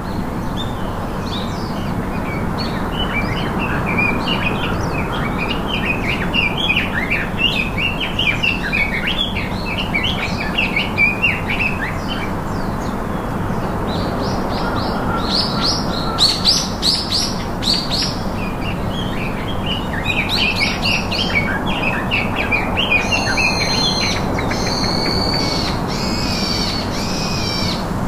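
Wild birds chirping and singing over a steady background hiss. Near the end one bird repeats a clear call about five times.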